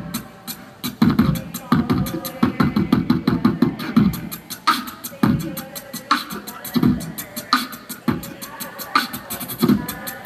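Solo beatboxing through a PA: a fast, driving vocal-percussion beat of bass-drum thumps, sharp snare-like hits and rapid hi-hat-like ticks, all made with the mouth.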